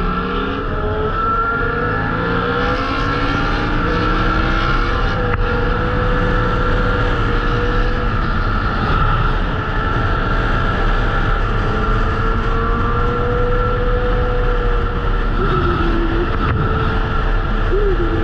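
Suzuki SV650 V-twin motorcycle engine under way at highway speed. Its pitch rises over the first couple of seconds as it accelerates, then holds steady at cruise. Heavy wind rush on the microphone runs underneath.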